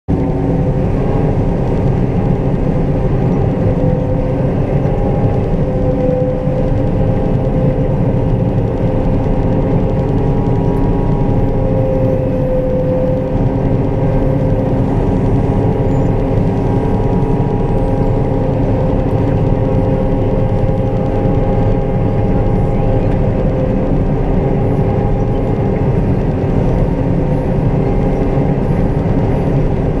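John Deere 9500 combine harvesting soybeans, heard from inside the cab: a steady, loud drone of engine and threshing machinery with several steady humming tones, unchanging throughout.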